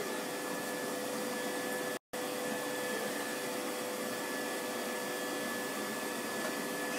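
Household vacuum cleaner running steadily: a constant motor hum with a steady whine. The sound cuts out completely for an instant about two seconds in.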